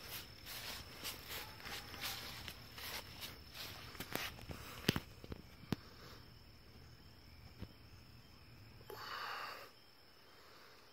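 Evening outdoor ambience: a steady high insect trill throughout. Over it come many sharp clicks and rustles in the first half, and a short rustle about nine seconds in.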